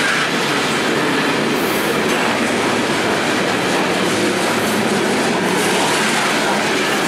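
Freight train cars rolling past close by: a steady, loud clatter and rumble of steel wheels on the rails.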